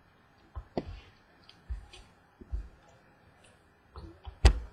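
Baseball trading cards being handled and set down on a table: a series of soft clicks and taps, with a louder knock near the end.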